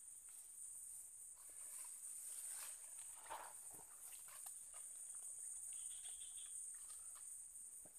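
Faint, steady, high-pitched insect drone, with soft scattered rustles and light taps from people moving through the undergrowth.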